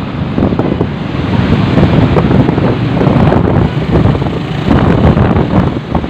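Heavy wind buffeting the microphone while travelling by road, with the rumble of the moving vehicle beneath it; steady throughout.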